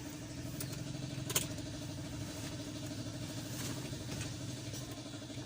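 A steady low mechanical hum with a fine even pulse, like an engine idling, with one sharp click about a second and a half in.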